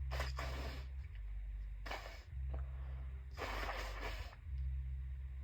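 A person with a tickly nose sniffing and taking sharp breaths, three breathy bursts, the last and longest about three and a half seconds in, as a sneeze builds.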